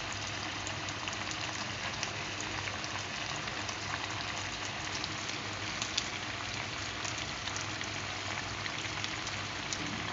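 Brown sauce around a fried yellow croaker boiling hard in a pan: a steady bubbling hiss with many small crackling pops.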